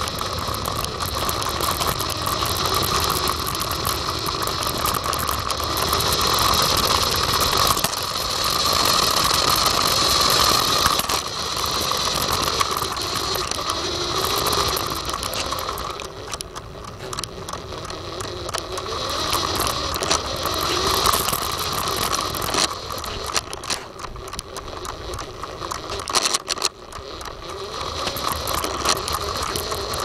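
Toy remote-control car's electric motor and gears whining as it drives over concrete, with scattered clicks. The whine swells and fades as the car speeds up and slows, and drops away briefly a few times.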